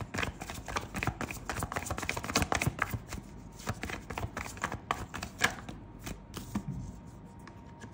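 Tarot cards being shuffled and handled: a dense run of quick card flicks and taps, thinning out after about five seconds.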